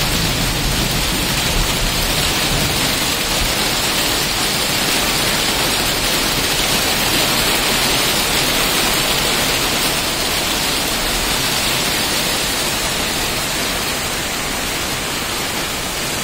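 Thunderstorm rain falling steadily: an even, dense hiss that eases slightly toward the end.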